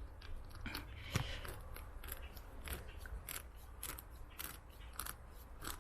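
Tire plug kit's rasp being worked in and out of a puncture in a tire's tread: faint repeated scrapes and clicks of the metal file against the rubber, about two a second.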